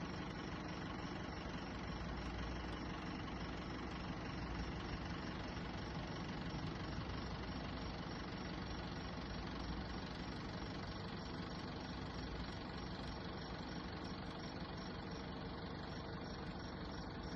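Bus engine idling steadily, an even drone with no horn blowing.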